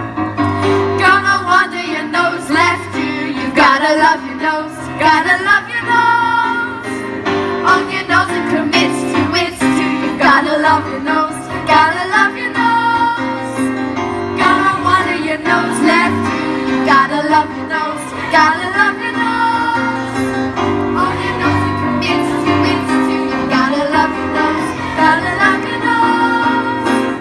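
Youth opera chorus of children's and young female voices singing in ensemble, the sung lines moving over steady, held low accompaniment notes.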